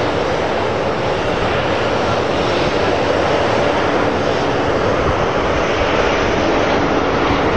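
Embraer regional jet on final approach with its landing gear down, its twin turbofan engines giving a steady, even rush of noise that grows slightly louder as it comes closer.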